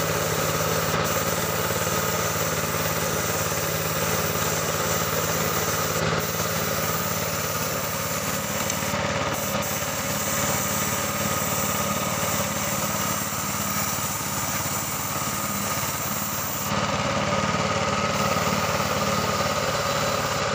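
Compressed-air paint spray gun hissing steadily, over the steady hum of an air compressor. The trigger is let off briefly a few times and for about a second near the end.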